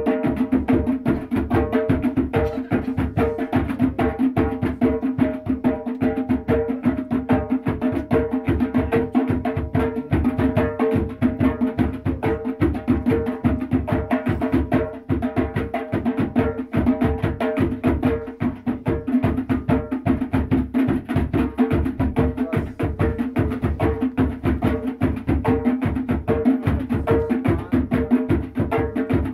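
Music with a fast, steady drum and percussion beat over a held note.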